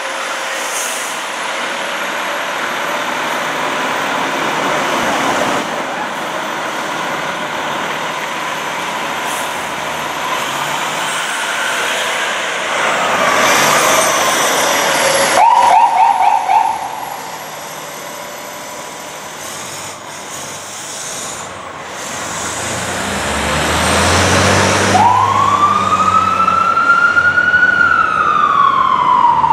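2007 Spartan Gladiator fire engine pulling out and driving off on an emergency response, its engine running under traffic noise. About halfway through a siren gives a short burst of fast warbling, and near the end an electronic wail siren rises slowly and falls.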